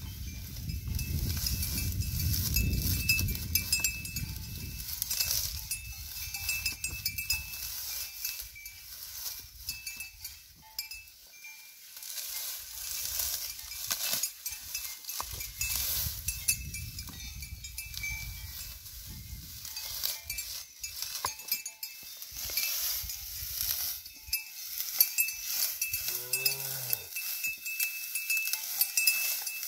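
Young bullock grazing in dry grass: rustling and crunching as it pulls at the stalks, over a steady high thin tone, with one short animal call near the end.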